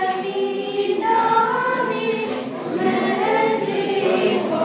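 A choir singing without accompaniment, several voices holding long notes together.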